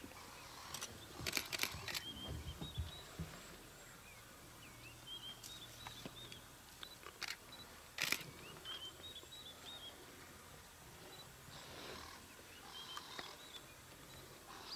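Quiet bush ambience: small birds chirping in short repeated notes, with scattered sharp clicks and knocks, the loudest about eight seconds in.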